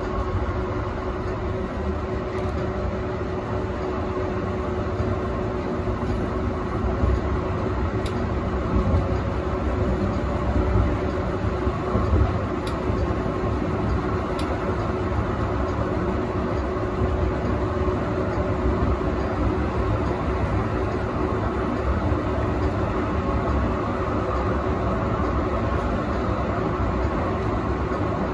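A2-class tram running along its track, heard from the front of the car: a steady rumble of steel wheels on rails and running gear with a constant low hum, and a few faint ticks.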